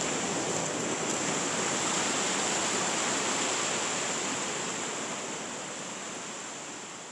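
Steady rushing hiss of water falling over a wide curtain waterfall, slowly fading out over the last few seconds.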